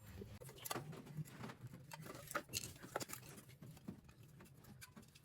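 Faint, scattered clicks and light taps of tools and metal parts being handled as the cracked impeller of a monoblock water pump is being taken off.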